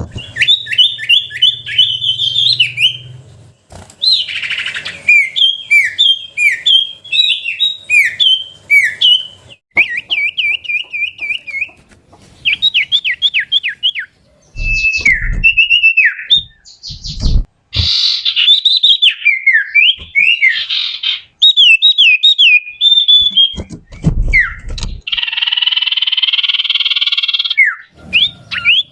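Common iora (cipoh) song: rapid runs of clear whistled notes, many sliding down in pitch, with quick trills, and a harsh buzzy call lasting about two seconds near the end. A few brief low thumps come in between.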